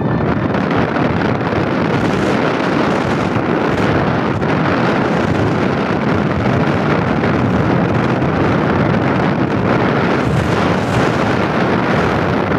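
Loud, steady wind rushing over the microphone through an open car window at road speed, with the car's road noise underneath.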